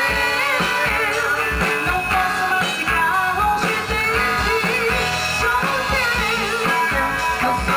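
Live gospel band playing a rock-style song, with a guitar melody over a steady beat.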